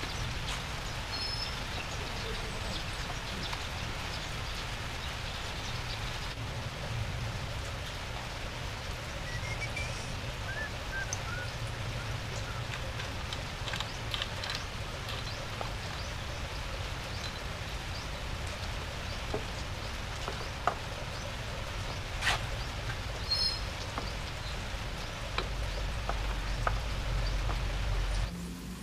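Steady outdoor background noise with scattered light metallic clicks from a motorcycle's rear chain and sprocket being handled, and a few brief bird chirps.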